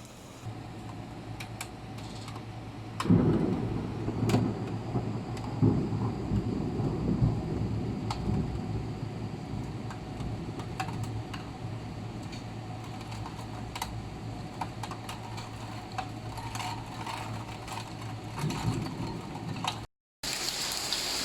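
Rain falling, with scattered sharp drip taps and a steady low hum underneath. Heavy low rumbles come about three seconds in and again near the end, and the sound cuts out briefly just before the end.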